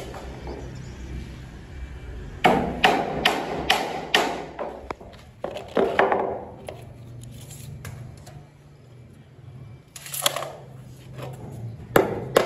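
Hammer tapping on a decorative panel bedded on sand, in several bursts of quick sharp strikes with pauses between.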